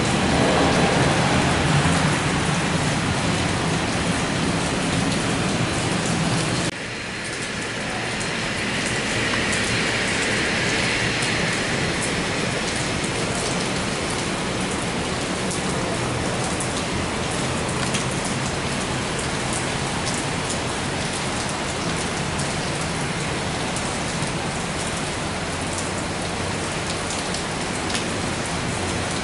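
Steady hiss of heavy rain. For the first seven seconds it is mixed with the engine noise of a British Airways Embraer jet on the wet runway, which cuts off abruptly at an edit. After that the rain is the main sound.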